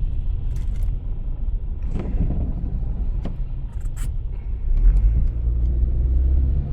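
Car engine and road rumble heard from inside the cabin while driving: a steady low rumble that grows stronger about five seconds in, with a few light clicks and knocks.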